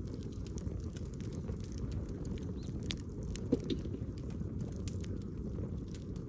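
Wood campfire crackling, with scattered small pops and one louder pop about halfway through, over a steady low rumble.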